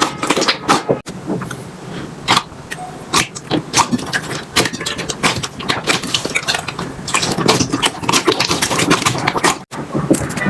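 Slime being squeezed and stretched by hand, with a dense run of irregular sticky clicks, crackles and pops.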